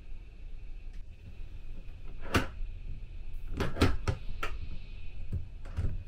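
Metal door hardware being handled: the lever handle and inner lock of a booth door click and clack in a series of sharp separate clicks, a few close together in the middle.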